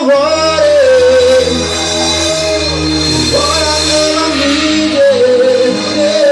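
Live band music: a singer holds long, wavering notes over a steady bass line.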